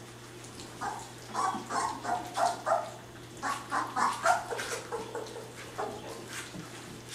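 Three-week-old Labrador retriever puppies lapping and smacking at gruel on plates, with two runs of short, high puppy yips, from about a second in and about three and a half seconds in.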